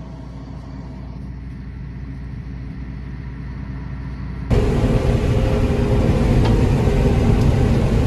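Tractor engine running steadily, heard from inside the cab. About four and a half seconds in it cuts abruptly to a much louder, fuller engine and machinery drone.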